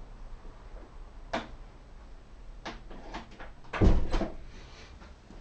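A few knocks and clicks of things being handled: a sharp click about a second in, several lighter clicks around three seconds, then a louder, heavier thump about four seconds in.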